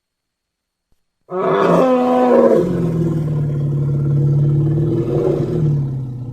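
Animated elephant's bellowing roar sound effect: it breaks in sharply about a second in, starts high and quickly drops into a long, steady low held call lasting several seconds, then tails off near the end.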